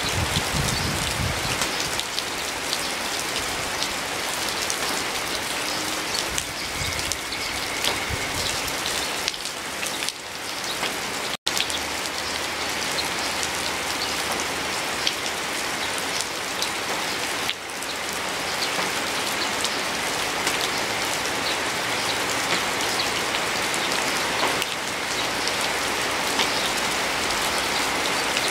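Steady rain falling, with many separate drops ticking close by. The sound cuts out for an instant about eleven seconds in.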